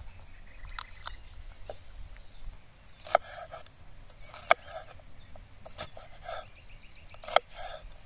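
Chef's knife slicing a green bell pepper on a wooden cutting board: a crisp crunch as the blade cuts through the pepper, then a sharp knock on the board, four times about a second and a half apart.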